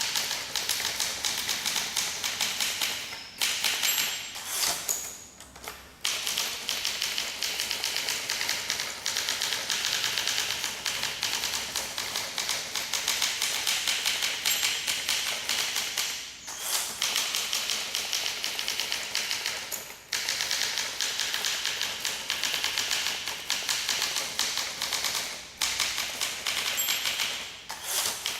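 Typing on a 1958 Olympia SM2 manual portable typewriter: a steady run of rapid key strikes, broken by a few short pauses.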